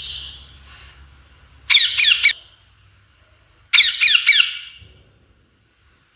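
A parrot squawking: after a softer call at the start, two loud bursts of quick, harsh, falling screeches, the second a little longer, about two seconds apart.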